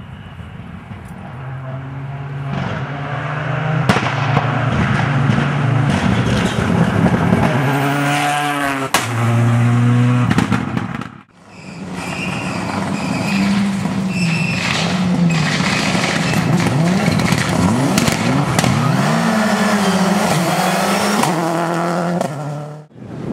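World Rally Cars driven hard on a rally stage: engines revving and dropping in pitch through gear changes, with tyre noise and a few sharp pops. The sound cuts off abruptly about eleven seconds in and resumes with another car revving hard.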